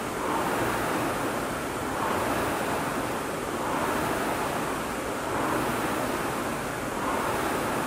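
Air rowing machine's fan flywheel whooshing, swelling with each drive stroke about every second and a half to two seconds during steady rowing.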